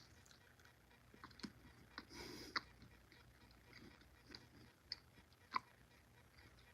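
Faint chewing of a jelly bean: a few soft, scattered mouth clicks over near silence.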